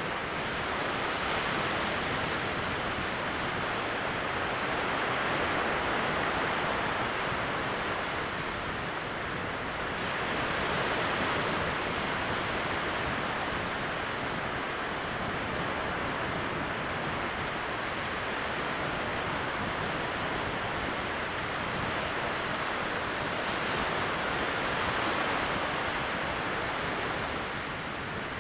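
Calm sea at very low tide: small waves breaking out across the wet sand flats, making a steady, gentle wash of surf that swells and eases slowly every few seconds.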